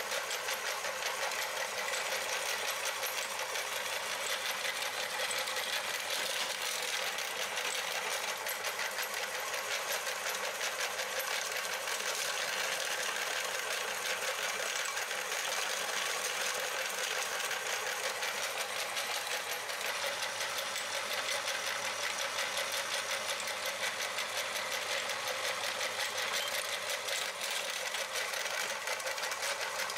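Metal meat grinder crushing sticks of chalk: a steady, dense crunching and grating made of many small rapid clicks, with no pauses.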